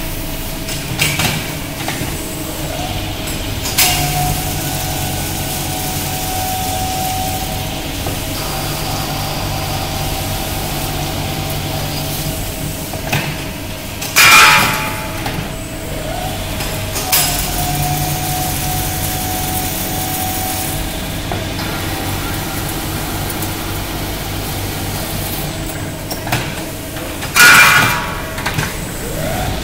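Hydraulic automatic bar-peeling lathe with two cutting tools running through its automatic cycle: a steady hum from its motor and hydraulic system. A loud, short burst of noise comes twice in each repeating cycle of about 13 seconds.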